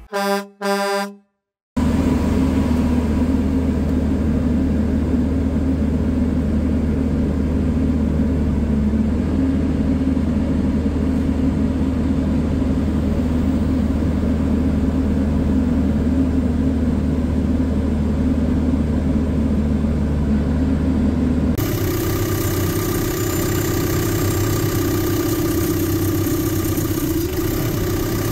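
Cat 420F backhoe loader's four-cylinder diesel engine running steadily at about 2,200 rpm in neutral, its exhaust particulate filter plugged with soot. About twenty seconds in the sound changes to a closer drone with a steady higher-pitched tone and more hiss.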